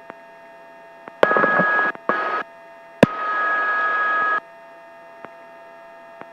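Helicopter intercom audio: a faint steady whine of tones, broken three times by the voice-activated microphone switching open and letting in bursts of rushing cabin and rotor noise that cut off abruptly. A sharp click about three seconds in.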